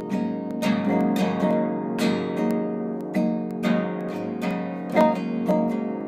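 Improvised jazz music on a plucked string instrument: chords struck about once or twice a second and left to ring.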